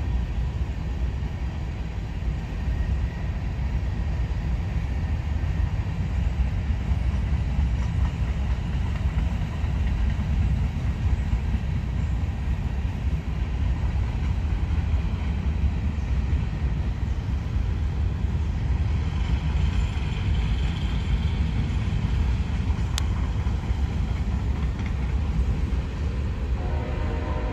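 CSX freight train of covered hopper cars rolling past, its steel wheels on the rails making a steady low rumble. A horn starts to sound near the end.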